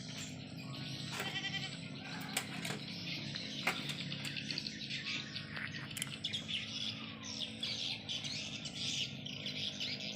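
Birds chirping over a steady low hum, with a few scattered clicks.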